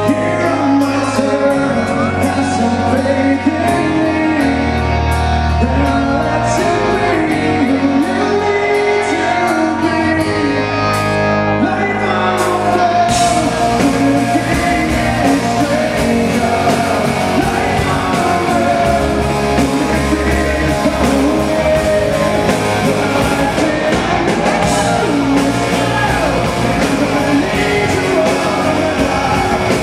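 Live rock band performing: a male lead vocal sung over electric guitar and drums. About halfway through, the band's sound fills out.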